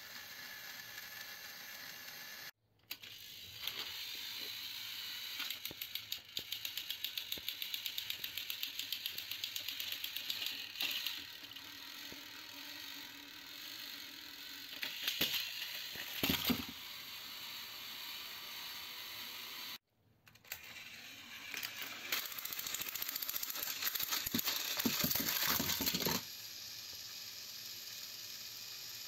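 Battery-powered Thomas & Friends toy trains whirring and clicking as their small motors and gears drive them along plastic track. The clicking is rapid and even in stretches, with a few louder clatters as the trains tip off the track and fall. There are two brief breaks in the sound.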